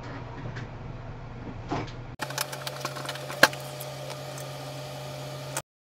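Steady low hum, then from a little past two seconds in, light irregular clicking and tapping over the hum, with one sharper click about a second later; the sound cuts off suddenly just before the end.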